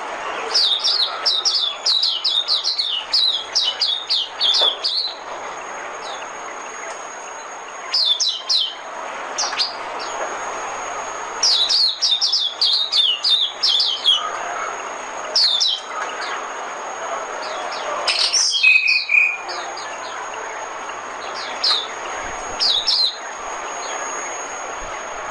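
White-eye (vành khuyên) singing a lure song: bouts of rapid, high twittering notes lasting a few seconds each, broken by short pauses, six or so bursts in all. A faint steady high tone and hiss run underneath.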